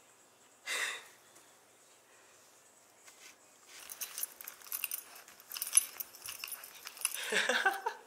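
Close rustling and irregular clicking as a cat moves about and brushes against the camera, growing busier and louder in the second half, with a short burst of noise about a second in.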